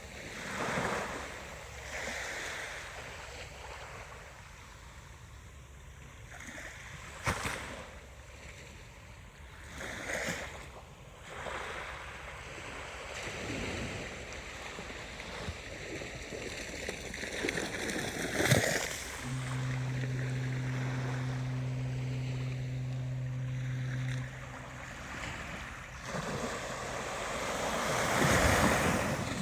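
Ocean waves breaking and washing ashore, swelling roughly every eight to ten seconds. A steady low hum sounds for about five seconds past the middle.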